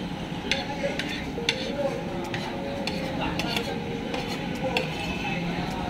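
Spoon and fork clinking and scraping on a plate as the last rice is scooped up, in short irregular clinks over steady background noise.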